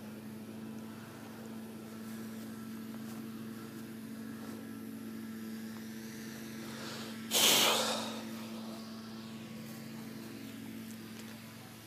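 A steady low mechanical hum with a few overtones, and one short, loud rushing burst about seven and a half seconds in.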